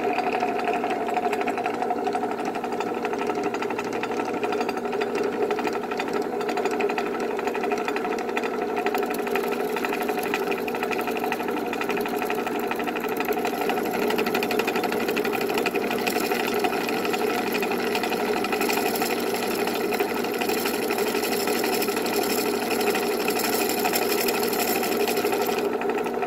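Drill press running steadily with a 1/8-inch bit in the middle axle bushing hole of an Athearn model locomotive truck, enlarging it so the axle can float. The motor hum holds an even pitch, and a brighter hiss of the bit cutting comes in about a third of the way through and grows stronger past the middle.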